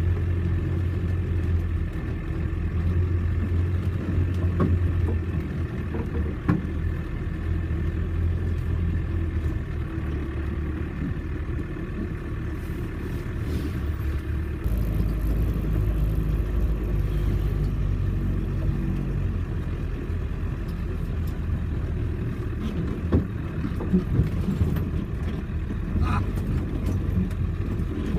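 Land Rover Defender engine running steadily off-road with a low drone that shifts to a deeper note about halfway through, with a few short knocks and clatters near the end.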